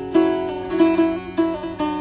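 Long-necked lute with tied frets played solo: a plucked melody with a new note about every half second, each one ringing on over a steady low tone.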